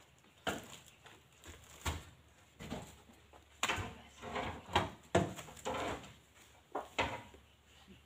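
Irregular thuds and knocks, about ten in eight seconds, as heavy oil palm fruit bunches are speared on wooden poles and heaved up onto a loaded truck.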